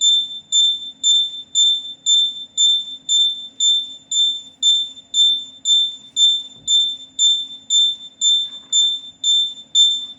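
Electronic buzzer beeping: a high, even tone pulsing about twice a second, over a faint steady hum.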